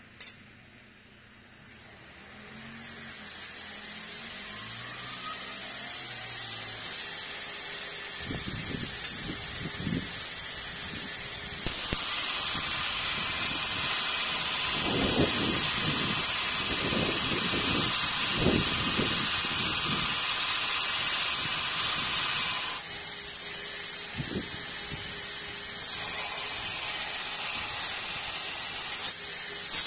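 A belt grinder is switched on with a click and runs up to speed. A 40-grit 3M Cubitron ceramic belt then grinds a bar of 316 stainless steel with a harsh, steady hiss. The grinding starts about eight seconds in, is loudest through the middle, and eases a little near the end.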